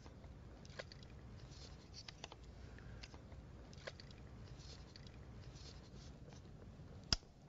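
Faint scattered clicks and scrapes from a fence wire tensioner and its comb-shaped tension bar being worked by hand against wire mesh, with one sharper click about seven seconds in, over a low steady rumble.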